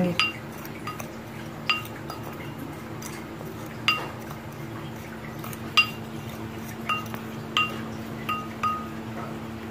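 Ceramic spoon clinking against a ceramic bowl while stirring a dry spice mix: about ten light ringing clinks at uneven intervals, over a faint steady hum.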